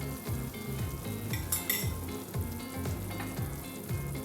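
Pot of chicken and vegetable soup bubbling at a simmer with a steady hiss, and a few light clinks of a spoon against the pot about one and a half seconds in.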